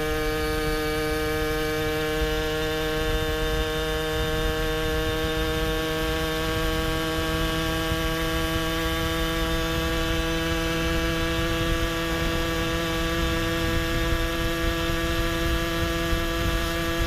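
Kitted 70cc two-stroke Puch Maxi Luxe moped engine with a chambered expansion pipe, held at high revs while cruising: a steady drone whose pitch creeps up slightly, with wind rumble on the microphone.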